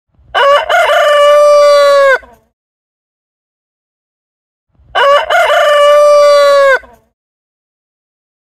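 Rooster crowing twice, each cock-a-doodle-doo about two seconds long with the last note held and then dropping, separated by a few seconds of silence.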